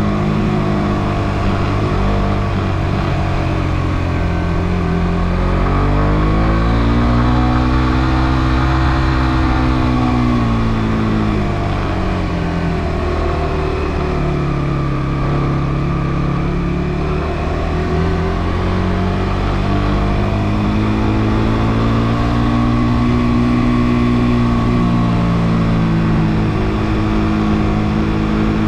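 Suzuki GSX-R150's single-cylinder engine running on the move. Its pitch climbs and falls as the throttle is opened and eased: it rises about a quarter of the way in, drops low near the middle, and climbs again in the last third.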